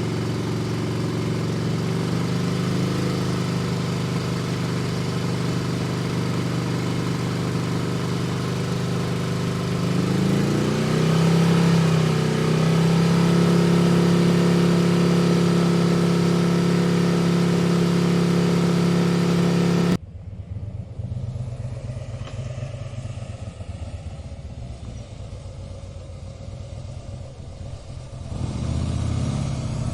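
Harley-Davidson motorcycle V-twin engine running steadily; its revs rise briefly about a third of the way in and then hold a little higher. Just past halfway it cuts abruptly to a second, quieter and duller recording of the engine: a low pulsing rumble that swells louder near the end.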